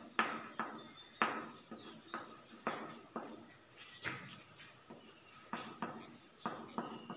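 Chalk writing on a blackboard: a dozen or so irregular taps and short scrapes as the letters are stroked out.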